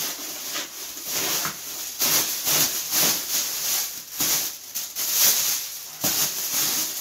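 Thin plastic refill film crinkling and rustling in irregular bursts as it is bunched and pushed down over a cardboard liner by hand.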